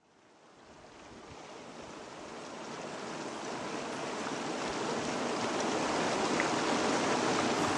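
A steady rushing noise, like surf or wind, fading in from near silence and growing steadily louder.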